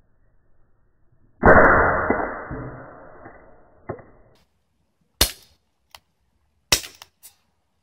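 CO2 BB pistol firing at a metal target: several sharp, short shots in the second half. About a second and a half in comes a louder noise that dies away over about two seconds.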